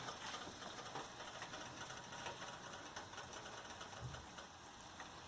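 Thick spiced curry boiling in a pan on a high flame: faint, irregular ticks and pops of bursting bubbles over a steady hiss.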